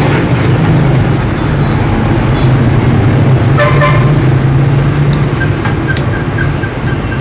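Street traffic of passing motorbikes, a steady low drone, with a short vehicle horn toot about halfway through. Over the first second or so come quick scraping strokes of a knife peeling sugarcane rind.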